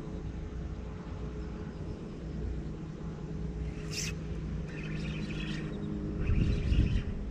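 Wind rumbling on the microphone over a steady low hum, with a quick swish of a fishing cast about four seconds in. The cast is followed by the spinning reel winding line, in short patches. The rumble grows louder near the end.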